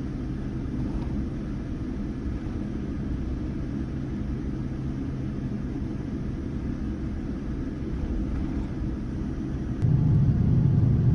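Jet airliner cabin noise: a steady low engine rumble with a faint hum while taxiing, then a sudden jump to a much louder rumble near the end, with the plane climbing after takeoff.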